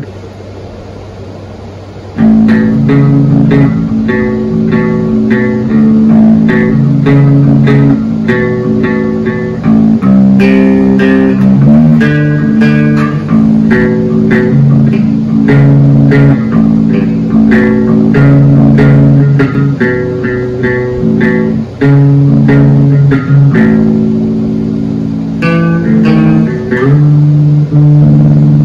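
Electric bass guitar played through a small combo amp, plucking a song's bass line with sustained low notes. The playing starts about two seconds in.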